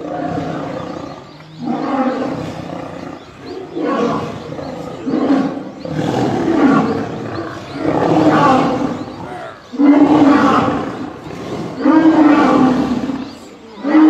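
Lions growling in a fight: a series of loud growls, one every second or two, as lionesses attack a male lion.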